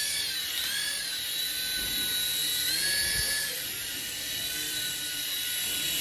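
Small electric motors of a toy hand-sensor (infrared induction) helicopter whining at a high pitch as it hovers, the pitch dipping and rising a couple of times as the motor speed changes.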